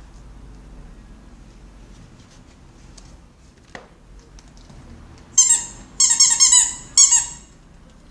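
Squeaky dog toy squeezed by a puppy chewing it: three loud, high squeaks in the second half, the middle one longest and wavering, after a single light tap.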